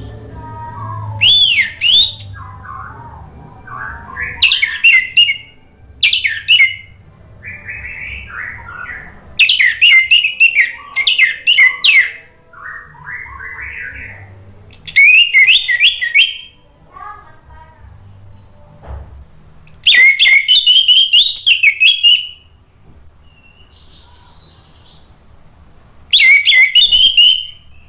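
Caged orange-headed thrush (anis merah) singing in full voice: loud bursts of rapid, varied whistled phrases, each a second or two long and about seven in all, with quieter, lower notes in the gaps between them.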